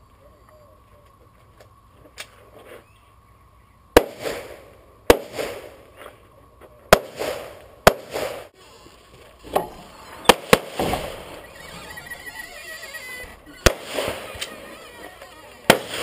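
Pistol shots at irregular intervals, about nine of them starting about four seconds in, some singly and two in quick succession, each trailing off in a short echo.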